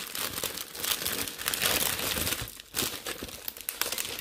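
Clear plastic packaging of a diamond-painting keychain kit crinkling in the hands as it is picked up and handled, irregular and stop-start, with a brief lull about two and a half seconds in.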